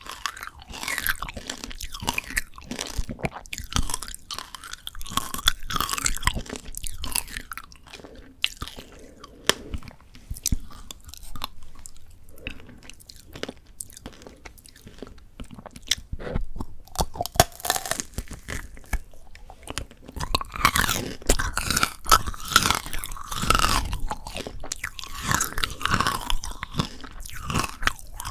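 Close-miked chewing of frozen Shine Muscat grape tanghulu: the hard candy shell cracking and crunching between the teeth in irregular crisp clicks, with wetter chewing of the grape in between. The crunching thins out in the middle and comes thick again toward the end.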